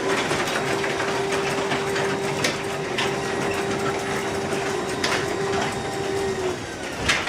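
Two Genie Silent Max 1000 garage door openers running at once as their doors travel, a steady mechanical rumble with an even hum and a few sharp clicks. The hum stops about six and a half seconds in, as one opener finishes its run.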